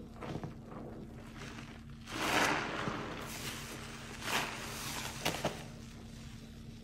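Mr Clean sponge soaked in thick laundry-detergent foam, squeezed and kneaded by rubber-gloved hands: irregular wet squelches and crackling suds, the loudest squeeze about two seconds in and shorter sharp squelches later on.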